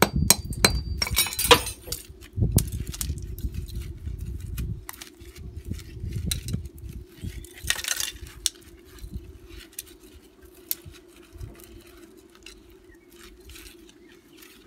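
Hammer blows on concrete breaking apart TV deflection yokes, with hard clinks of broken ferrite and plastic shards, most in the first two seconds. Then scattered lighter clinks and rustling as the copper windings are pulled out by hand.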